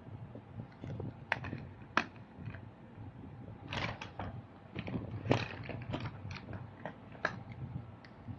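Irregular clicks and clacks of small plastic toy vehicles being handled, with two sharper knocks, one about two seconds in and one past the middle.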